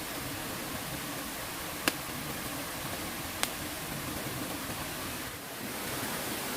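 Steady rush of flowing stream water, with two sharp clicks, about a second and a half apart.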